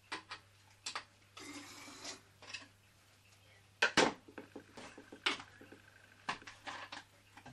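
Clicks and knocks of small objects being picked up and set down on a wooden workbench, with the loudest knock about four seconds in, while the spirit burner of a model steam engine is being filled with methylated spirit.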